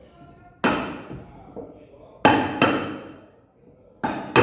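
Hammer blows on metal, five sharp strikes at uneven intervals, each followed by a short ringing: driving the washing machine's mechanism out of the tub.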